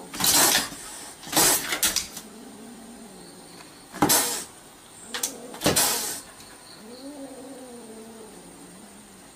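A cat hissing in about four sharp bursts at a dog, then giving a long, low, wavering growl over the last few seconds: a defensive warning.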